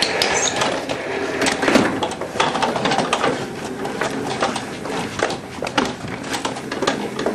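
Wheeled office chair rolling fast over a hard floor: a steady rattling rumble from the casters, with frequent knocks and clicks as it bumps and turns.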